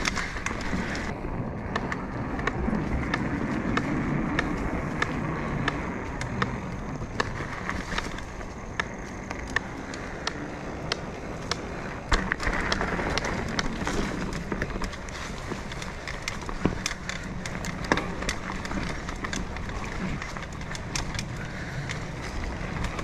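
Mountain bike being ridden on a dirt singletrack trail: tyres rolling on the dirt, with frequent sharp clicks and knocks as the bike rattles over the bumpy trail.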